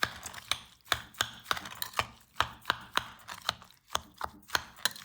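Chopped onion, garlic and turnip with sugar being stirred together in a container, the utensil clacking against the container about three times a second.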